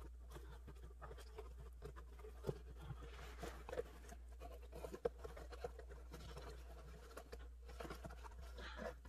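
Hands handling a cardboard box and jute twine: faint scratching and rustling of cardboard and string, with a few soft taps.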